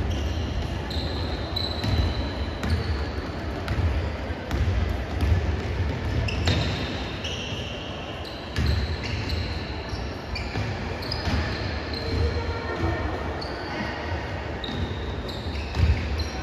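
Basketball game play: a ball bouncing on the court floor again and again, sneakers squeaking in short high chirps, and players and spectators calling out.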